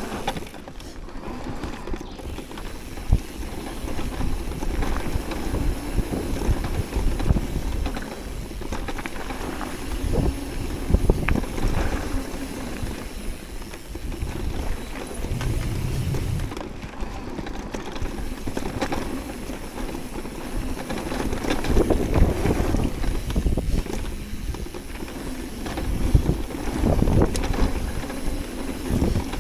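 Electric mountain bike being ridden along a dirt trail: tyres on dirt and the bike knocking and rattling over bumps, with wind buffeting the microphone.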